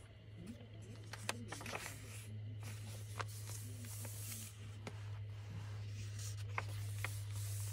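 Paper pages of a handmade junk journal being turned and handled: soft rustling with a few light clicks and taps, over a steady low hum.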